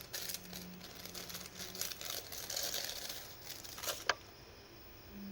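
Crinkling and rustling of thin packaging being handled and opened, most likely the packet of a lantern mantle. A sharp click comes about four seconds in.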